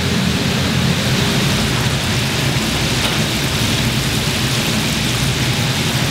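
Large flat deep fryer of hot oil sizzling steadily as battered fish is fried in it, over a steady low rumble.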